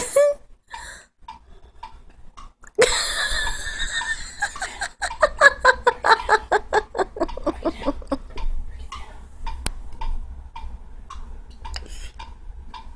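A person laughing hard: starting about three seconds in, a long run of quick 'ha' pulses, about five a second, that slide down in pitch over some five seconds and trail off into softer chuckles.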